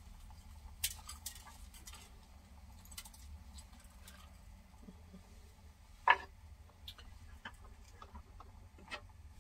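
Scattered light clicks and taps of kitchen handling (small bowls, a spoon and a pan on a stovetop) as cabbage is seasoned, with one louder knock about six seconds in. A low steady hum sits underneath.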